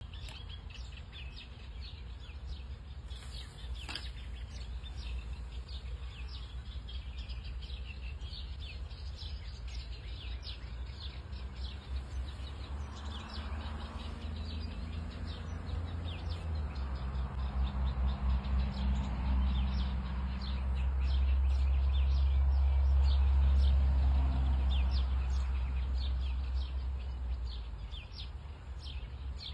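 Small birds chirping in quick, repeated notes over a low outdoor rumble. A low drone swells up near the middle and fades out toward the end.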